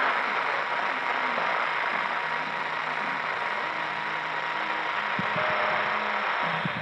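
CB radio receiver hissing with band static on an open channel after a skip contact, with faint, wavering signals buried in the noise. A few sharp clicks near the end.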